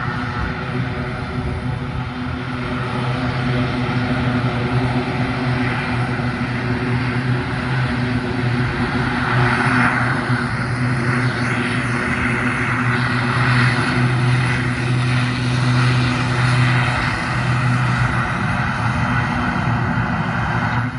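Twin-turboprop air tankers, CAL Fire S-2T Trackers, running on the runway: a steady propeller drone with a low hum. It grows somewhat louder through the middle.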